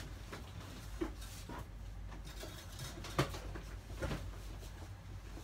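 Scattered knocks, clicks and rustles of belongings being handled while packing, with the sharpest knock about three seconds in.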